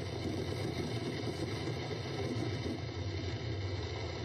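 Distant fireworks display heard as a steady low rumble, with no single bang standing out.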